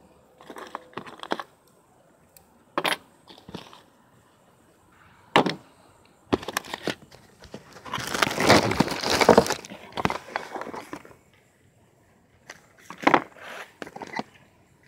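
Plastic packaging and a cardboard box of new brake parts being handled: scattered clicks and taps, and a loud crinkling of plastic wrap about eight seconds in that lasts around two seconds.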